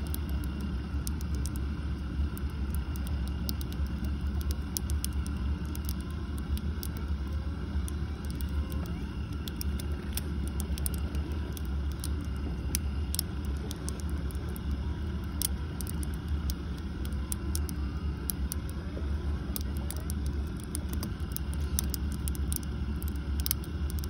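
Boat engine running steadily at slow trolling speed, a constant low rumble, with frequent short sharp clicks over it.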